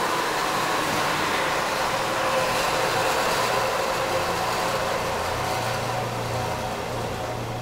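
Northfield 36-inch direct-drive bandsaw coasting down after its foot brake is applied, the wheels and blade spinning down. The running noise fades slowly.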